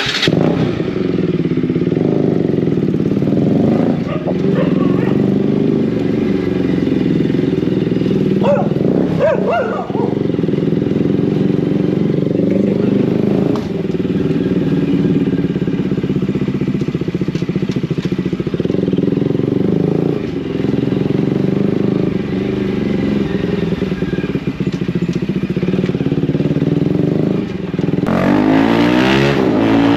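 Bajaj Pulsar RS200's single-cylinder engine running through an aftermarket Akrapovic full-system titanium exhaust while riding, with a steady exhaust note that rises in revs near the end.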